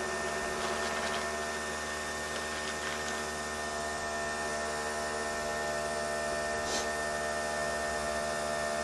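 Coffee machine running as it brews coffee into a glass of ice: a steady, even, pitched mechanical hum.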